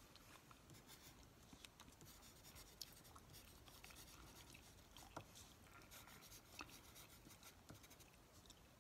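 Faint pen writing on paper: soft scratching strokes with scattered light ticks.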